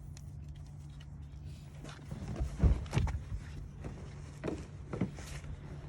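Several dull knocks and clicks of car-speaker parts being handled, loudest in a cluster about two to three seconds in, with two lighter clicks later, over a steady low hum.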